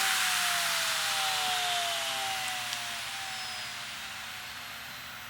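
CD-ROM drive spindle motor with a CD mounted on it spinning down from high speed: its whine falls steadily in pitch while the rush of the spinning disc fades, with one faint tick about two and a half seconds in.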